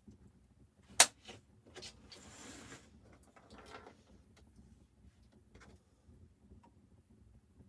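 Handling noises: one sharp knock about a second in, then a short scrape and a few lighter clicks.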